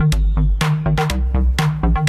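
Electronic music with a steady beat of about two hits a second over a deep, sustained bass line.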